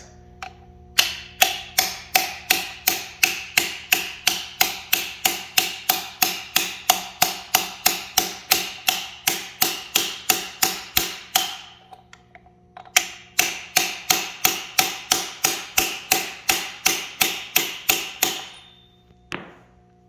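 Hammer striking a metal driver to press the timing gear onto a big-block Chevy crankshaft snout: steady metallic blows, about three a second. A long run of blows stops for a second or so, a second run follows, then one last single blow near the end.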